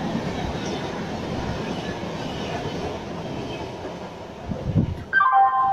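LHB passenger coaches of an express train rolling past at speed, a steady rushing that fades as the last coach goes by. About five seconds in, a tune starts.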